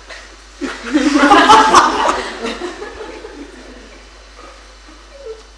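A burst of laughter from a small audience, starting a little under a second in and fading out over the next two seconds.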